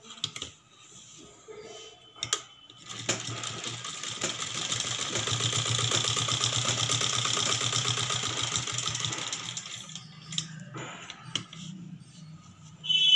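Black domestic sewing machine stitching a seam through cotton blouse fabric: a few clicks, then a steady rapid run of stitches that speeds up, holds and slows to a stop. A loud shrill tone breaks in at the very end.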